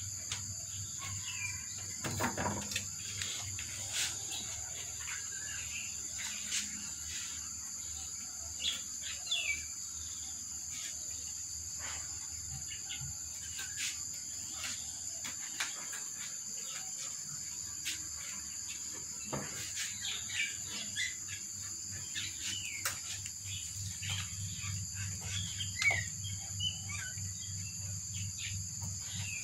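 Steady, high-pitched drone of insects, with short bird chirps scattered through it and occasional light clicks and taps.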